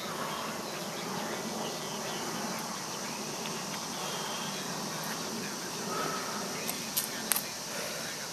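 Steady outdoor background hiss with faint insect-like buzzing, and a few sharp clicks about seven seconds in.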